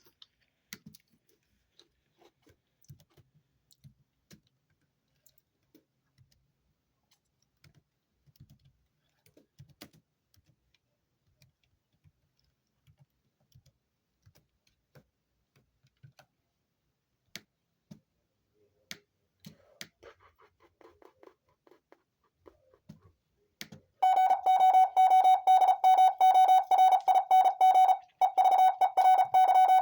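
Faint scattered clicks for most of the stretch. Then, about three quarters of the way in, a loud Morse code tone starts: a single-pitched beep keyed rapidly on and off with one short break, sending the station's call sign as an amateur radio identification.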